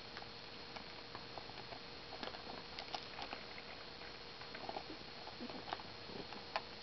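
Puppy chewing and gnawing on a plastic hairbrush, its teeth making irregular small clicks and scrapes on the handle and bristles, with a sharper click near the end.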